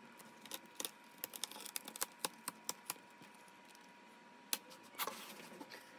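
Faint, irregular small plastic clicks and crackles from a laptop screen bezel being pried free of its plastic clips and adhesive with a guitar pick.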